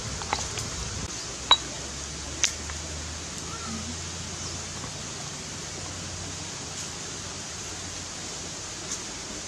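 Wood fire crackling, with a few sharp pops in the first three seconds over a steady hiss.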